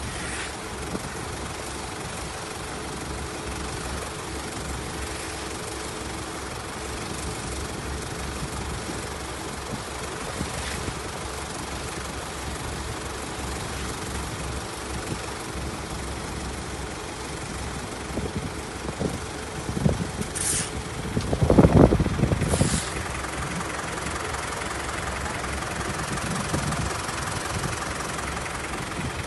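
An engine runs steadily with a low pulsing rumble. About three quarters of the way through a louder low rumble surges for a couple of seconds, with two brief sharp noises close by.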